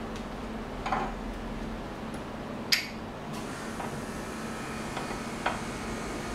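Three light knocks and clinks of a steel plane iron and small tools being handled and set down on a wooden bench: a dull knock about a second in, a sharp clink near the three-second mark that is the loudest, and a softer click later, over a steady low hum.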